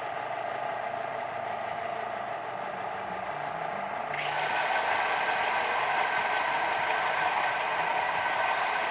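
Stationary vertical belt sander running. About four seconds in, a cherry wood wedge blank is pressed against the belt and the sound gets louder and hissier as the wood is sanded.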